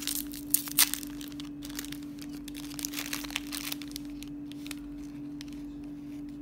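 Plastic Pocky snack packet being torn open and handled, crinkling and crackling, with the sharpest crackles about a second in and softer rustling as the sticks are pulled out.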